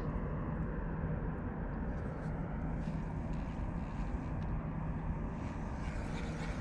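Steady low drone of a distant motor over open-air background noise, with a few faint splashes of small bass jumping at the surface.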